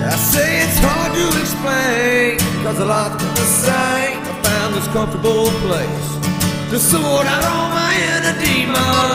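A man singing a slow melody to his own steadily strummed acoustic guitar.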